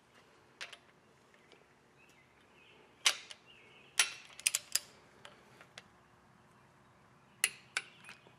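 Sharp metallic clicks and clinks of a ratchet and socket being fitted onto and turned on the main cap bolts of an LS V8 engine block. They come singly and in a quick cluster, loudest about three and four seconds in, with a couple more near the end.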